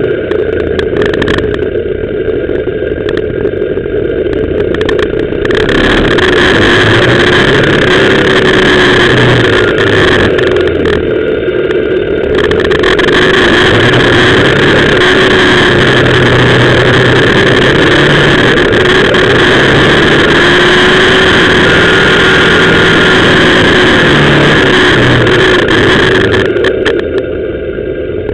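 BMW R1200GS Adventure's flat-twin engine pulling the motorcycle up a winding mountain road, its note shifting up and down, under loud wind rush on the bike-mounted microphone that sets in about five seconds in, dips briefly and eases near the end.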